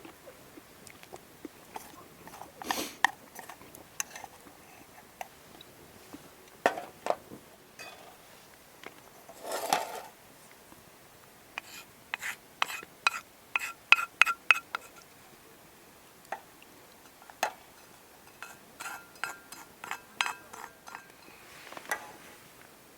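Metal cookware and utensils clinking, tapping and scraping in irregular strokes. Some of the strikes ring briefly with a metallic tone, and there is a short scrape about ten seconds in.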